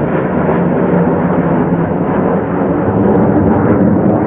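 Two F-15 Eagle fighter jets passing overhead in formation, their twin turbofan engines making a loud, steady jet noise.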